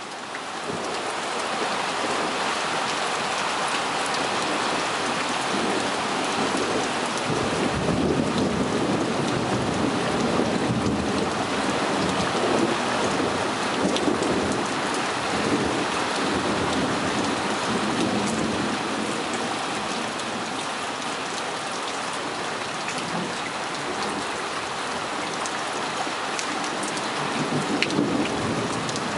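Heavy rain of a thunderstorm falling steadily, with low thunder rumbling through it, strongest about a quarter to halfway in and again briefly near the end.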